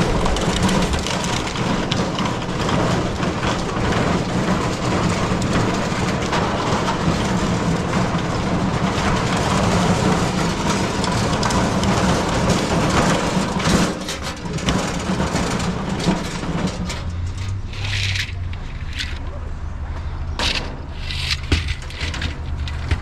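A vehicle engine running steadily under a wash of noise. About 17 seconds in, the hum drops lower and several short knocks follow near the end.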